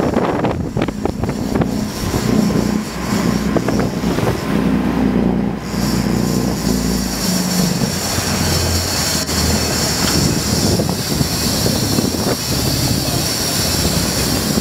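Boat engine running under way, with wind and rushing water.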